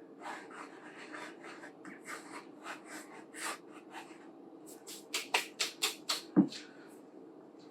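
Kitchen scraping as lemon zest and sugar are prepared: soft, repeated scratchy strokes. A little after five seconds in they turn sharper and quicker, about four a second, and then comes a single knock.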